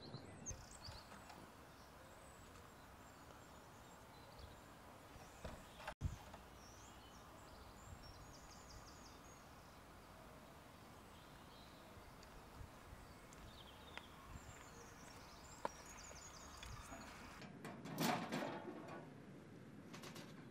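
Quiet outdoor ambience with small birds chirping and trilling in the distance. About eighteen seconds in comes a brief louder knocking clatter, as of the letterbox being opened.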